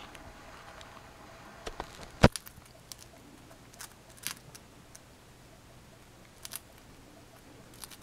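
Cockatiel biting and crunching a pretzel stick with its beak: scattered sharp cracks and clicks, the loudest about two seconds in.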